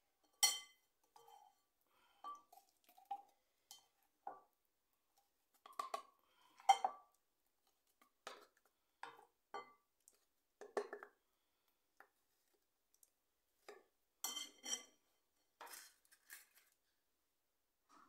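Kitchen utensils and dishes clinking and tapping in scattered short knocks, a few with a brief metallic ring. The sharpest come about half a second in and near seven seconds, with a quick run of clinks about fourteen seconds in.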